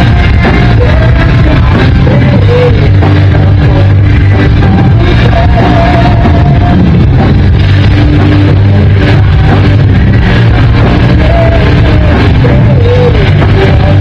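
Live rock band playing: electric guitars and drums with a singer's voice over them, loud and dense throughout.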